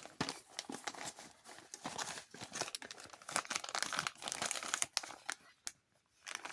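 Crinkling and rustling of craft-kit packaging handled by hand: irregular crackles and small clicks, with a short pause a little before the end.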